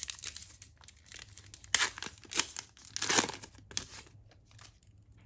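Foil trading-card pack being torn open and crinkled in the hands: a series of sharp tearing and crackling strokes, loudest about two and three seconds in, that die away after about four seconds.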